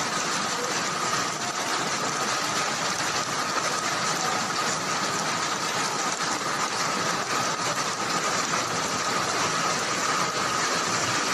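Heavy rain and floodwater making a dense, even hiss, with a constant high-pitched hum running through it.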